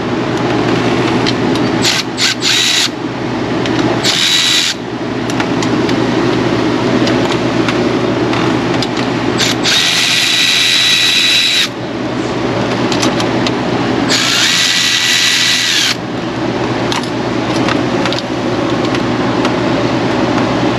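A cordless power drill/driver runs in four bursts, the longer ones lasting about two seconds, with a high motor whine that drops as it spins down. A steady low hum sits underneath throughout.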